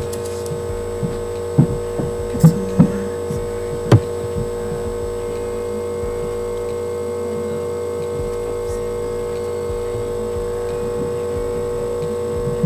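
Steady electrical mains hum, a constant multi-tone drone, with a few short light knocks in the first four seconds.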